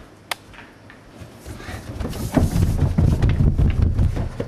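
Footsteps of two or three people going quickly down a flight of stairs: a dense run of irregular low thumps, loudest from about two seconds in, after a single sharp click just before.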